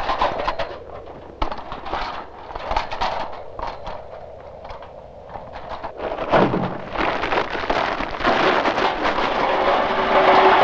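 Metal clicks and clatters as a portable kettle-style barbecue grill on a folding stand is handled and set up. About six seconds in, a loud rushing noise starts and keeps on.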